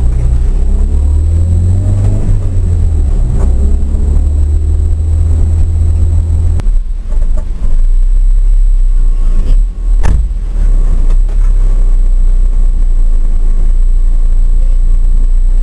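Ford Fiesta RS1800's four-cylinder engine heard from inside the cabin, driven hard with the pitch rising and falling between gear changes. About six and a half seconds in the sound changes abruptly to a steady low rumble, with one sharp knock a few seconds later.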